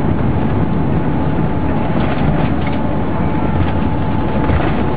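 Cabin noise inside an Airbus A380's lower deck on the landing: a loud, steady rumble of engines, airflow and the moving airliner.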